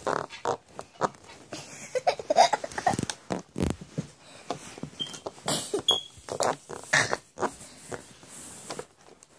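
A teething one-year-old mouthing and chewing the cap of a plastic water bottle. Short baby vocal sounds and breaths come among irregular clicks and crackles of the plastic.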